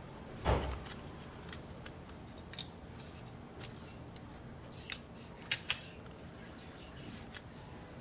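Small tools and laptop parts being handled on a bench: a dull knock about half a second in, then a few scattered sharp clicks, two of them close together past the middle.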